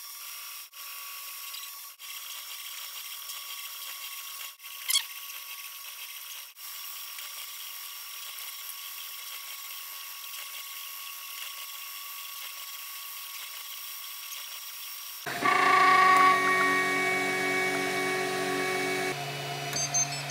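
MakerBot Replicator 2 3D printer running a print: its stepper motors whine in steady tones, with a quick rising sweep about five seconds in, broken by a few short cuts. About fifteen seconds in the whine gets louder and lower, in several steady tones.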